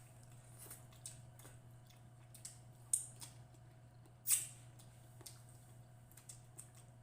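Close-up eating sounds: scattered soft mouth clicks and smacks of chewing, with a sharp click about three seconds in and a short hiss just after four seconds, over a steady low electrical hum.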